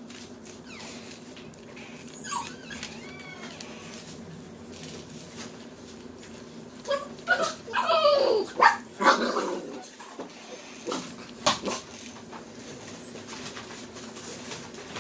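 Small dog whining and whimpering in several high, wavering calls, a short one about two seconds in and the loudest cluster about seven to ten seconds in.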